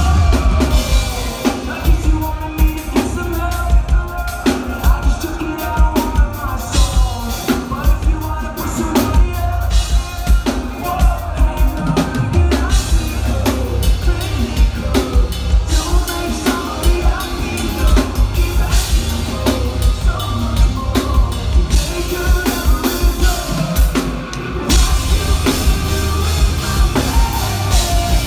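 Live rock band playing loud, with a pounding kick drum and full drum kit under bass and guitars. The band drops out briefly near the end, then comes back in at full volume.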